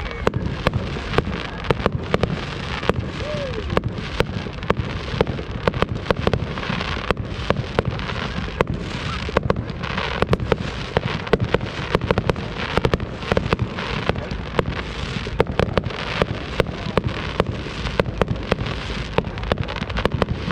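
Fireworks display: a rapid, continuous string of sharp bangs and crackles, several a second, over a steady low rumble.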